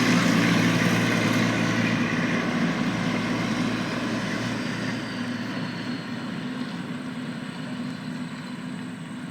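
Heavy earth-moving equipment engine running steadily, a low hum that grows gradually fainter.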